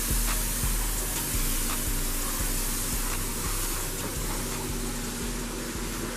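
Self-serve car wash high-pressure wand spraying water onto a car, a steady dense hiss, with a low thump repeating about twice a second underneath.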